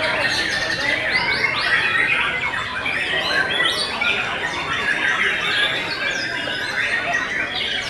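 Several caged white-rumped shamas (murai batu) singing at once: a dense, overlapping chorus of quick whistles, chirps and trills.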